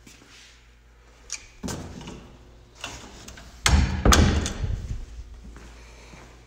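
A door being shut: a few light knocks and bumps, then a loud double thud a little past the middle as it closes.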